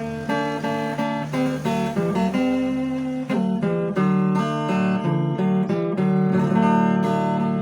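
Brazilian viola caipira (ten-string folk guitar) playing a hymn melody in plucked notes over a held low bass note.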